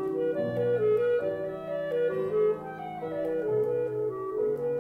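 Clarinet playing a folk-song melody note by note over a lower accompanying line, as background music.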